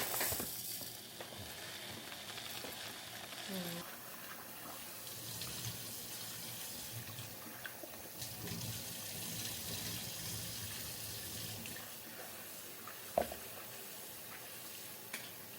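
Kitchen tap running steadily into a sink, with one sharp knock about thirteen seconds in.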